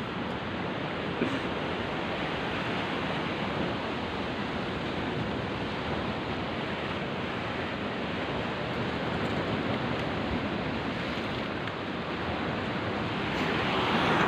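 Ocean surf washing steadily against the shore, getting a little louder near the end.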